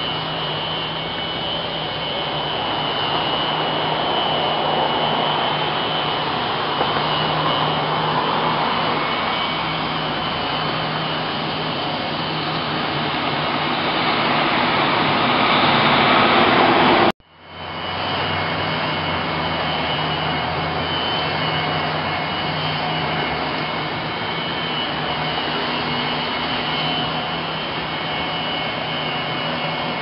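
Corded electric leaf blower-vacuum running steadily in vacuum mode: a constant whine over a hiss. The sound cuts out abruptly for a moment a little over halfway through, then comes back at the same steady level.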